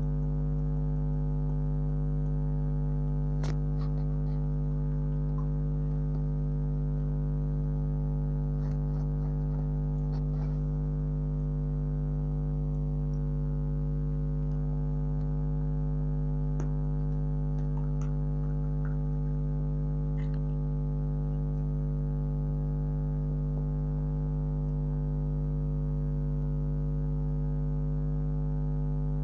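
Steady electrical mains hum, a low buzzing drone that does not change, with a few faint clicks scattered through it.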